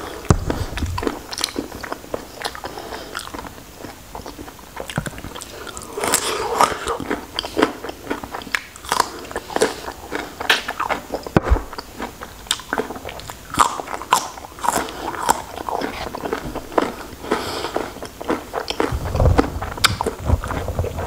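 Close-miked eating sounds of a person biting and chewing raw shrimp: irregular crunching and clicking, busier after about six seconds.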